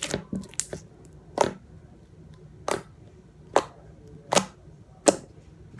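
Thick, glossy school-glue-and-borax slime being pressed and folded by hand, giving a series of sharp pops and clicks as trapped air bursts, about eight in all at uneven intervals.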